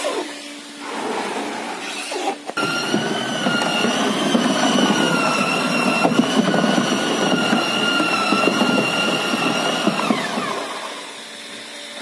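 Handheld electric drill with a paddle mixer churning foam-concrete slurry in a steel barrel: the motor starts with a click about two and a half seconds in, runs at a steady whine over the sloshing of the mix, then winds down near the end.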